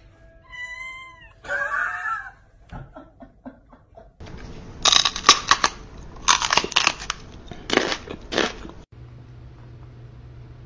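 Domestic cat meowing twice in quick succession, a higher wavering call and then a louder, lower one. Later comes a run of loud, harsh noisy bursts, the loudest sound here, followed by a steady low hum.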